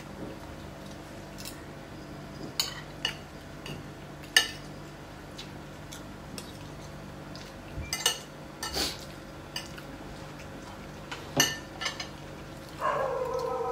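Metal spoons and forks clinking and scraping against ceramic dinner plates as two people eat, in scattered single clicks with a faint steady hum behind. Near the end a held pitched sound comes in for about a second and a half.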